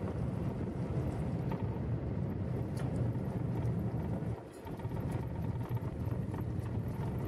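Vehicle driving on a gravel road, heard from inside the cabin: a steady low rumble of engine and tyres with a few faint ticks, easing briefly about four and a half seconds in.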